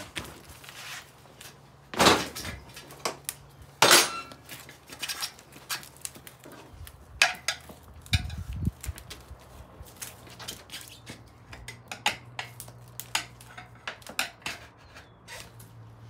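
Tire irons clanking and scraping against a Honda CRF150F's rear wheel rim as the first bead of a tubed tire is levered on. There are two loud clanks in the first few seconds, then lighter clicks and taps.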